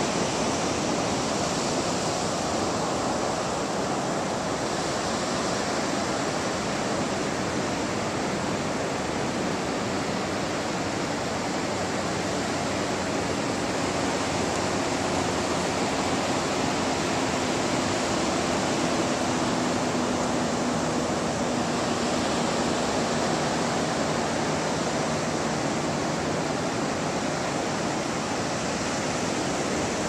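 Ocean surf breaking on a beach: a continuous, even rushing noise with no pauses.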